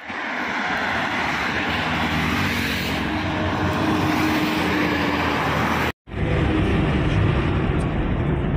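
Highway traffic passing close by: truck, bus and motorcycle engines with tyre noise on the road, and an engine tone that swells about three to five seconds in. About six seconds in the sound cuts out abruptly. It comes back as the steady low rumble of road and engine noise heard from a vehicle driving along the highway.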